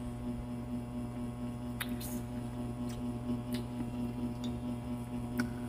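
A steady electrical hum, with a few short wet clicks from someone chewing juicy pineapple.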